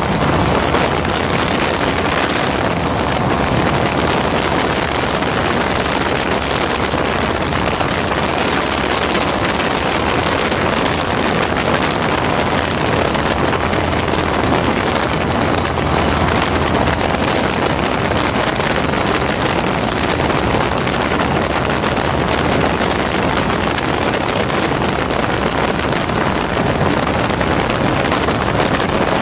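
MiniMax ultralight's Hirth F33 single-cylinder two-stroke engine running steadily in flight, mixed with heavy wind rush over the microphone in the open cockpit.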